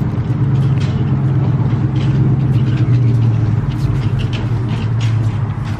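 A motor vehicle's engine running steadily close by, a low, even hum, with footsteps on pavement ticking over it.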